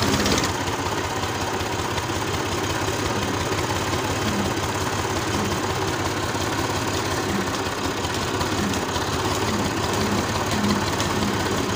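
Tractor diesel engine running steadily with a rapid, even chugging as the tractor drives along.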